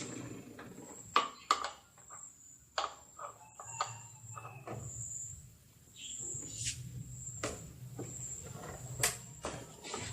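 Scattered clicks and knocks of hand tools and metal and plastic parts being handled while the windshield mounting arms are unscrewed and pulled off a Vespa LX 125 scooter. A faint, steady high-pitched tone runs underneath.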